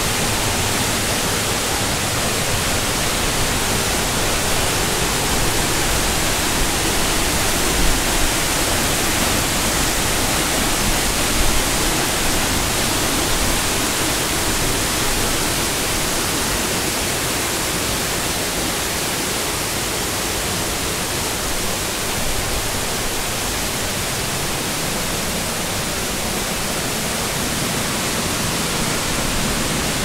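Small waterfall pouring into a shallow rocky pool, a loud steady rushing of falling and splashing water.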